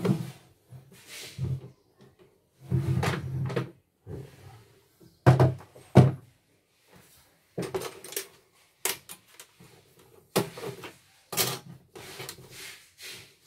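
Irregular plastic clacks, knocks and scraping as the embroidery unit and bed of a CNY portable embroidery machine are handled and shifted by hand.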